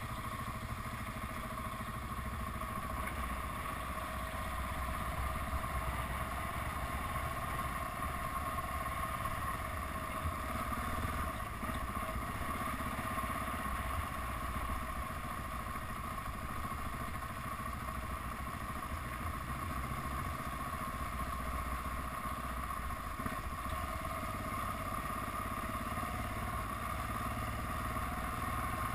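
KTM 690 Enduro single-cylinder motorcycle running steadily while riding along a dirt track, with road and wind noise.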